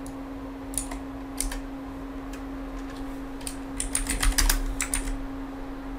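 Computer keyboard being typed on: a couple of single keystrokes, then a quick run of keystrokes about four seconds in.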